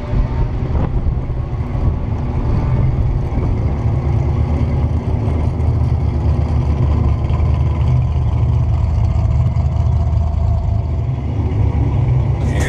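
Fuel-injected 5.0 V8 of a Fox-body Ford Mustang rumbling steadily at low speed, its exhaust heard close up.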